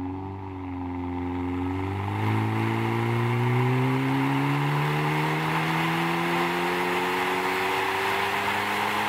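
Hyundai i30N's turbocharged 2.0-litre four-cylinder running on a chassis dyno. Its revs climb slowly and evenly through a gear under load, over a steady rushing noise.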